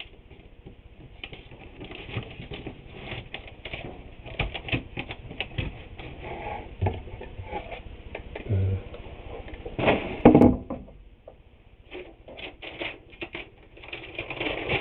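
Scattered light knocks, clicks and rustling of small objects being handled on a workbench, with a louder clatter about ten seconds in.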